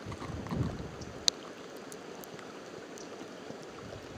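A small mountain creek running with a steady rushing hiss. A single sharp click sounds about a second in.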